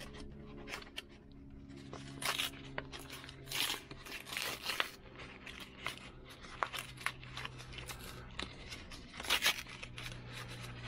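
Thin brown paper packaging being torn open and crinkled by hand, in irregular rips and rustles, the loudest about nine seconds in. A faint steady low hum runs underneath.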